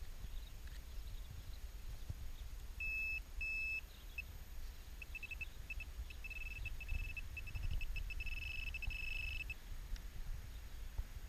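Handheld metal-detecting pinpointer beeping as it is worked through the soil of a dug hole. Two short beeps come first, then a run of pulses that quickens until it is nearly one continuous tone, which stops about nine and a half seconds in: the probe homing in on a buried coin. A low rumble of wind and handling runs underneath.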